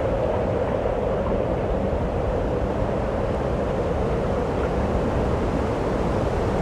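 Tornado wind blowing hard as a steady, unbroken rumbling noise, heaviest at the low end.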